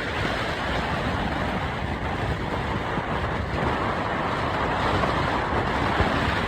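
Ocean surf washing on a beach: a steady rushing noise with a strong low rumble.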